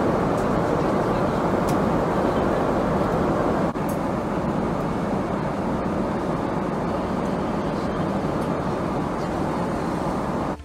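Steady roar of a Boeing 777-300ER's cabin in flight, the engine and airflow noise heard from a seat, with a momentary break a little under four seconds in.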